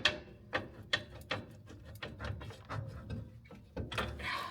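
Sharp metal clicks and knocks, several in quick succession, then a ringing clatter near the end, as a caravan brake drum and hub are worked off the axle.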